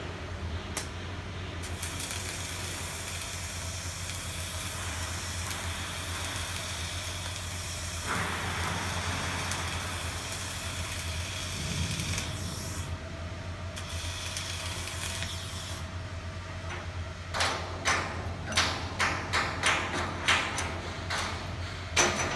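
CO2 gas-shielded arc welding on a steel ship hull: the welding arc hisses and crackles steadily for about twelve seconds from about two seconds in, then stops. Near the end comes a quick run of sharp clicks about twice a second, over a steady low hum.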